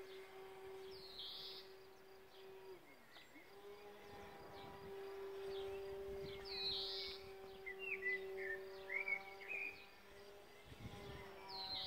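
Racerstar BR2212 1400KV brushless motor and propeller of an electric RC plane flying overhead, a faint steady drone that sinks in pitch and drops away about three seconds in as the throttle is eased off, then comes back and holds. A bird chirps a few times about eight to nine seconds in.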